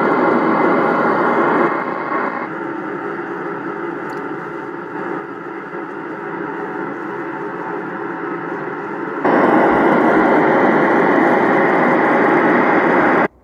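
FM hiss from a Yaesu FT-847 satellite transceiver's speaker, with the squelch open on the ISS FM repeater downlink and no clear signal coming through. The hiss drops in level about two and a half seconds in, comes back louder about nine seconds in, then cuts off suddenly just before the end.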